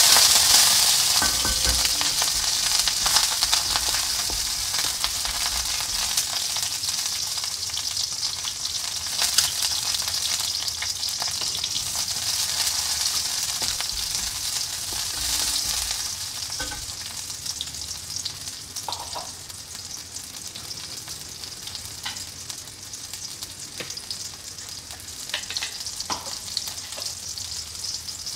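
Sliced onion, garlic, lemongrass and ginger sizzling in hot oil in a wok, loudest just after they go in and gradually dying down, with a wooden spatula stirring and knocking against the wok now and then. This is the aromatics being fried as the base for a curry.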